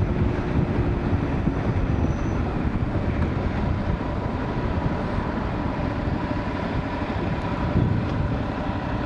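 Motorcycle engine running steadily under way, mixed with wind rushing over a helmet-mounted microphone.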